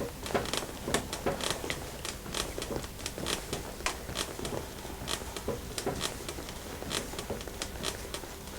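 Hands rubbing and stroking bare skin during a dry massage: quick, irregular scratchy swishes, several a second.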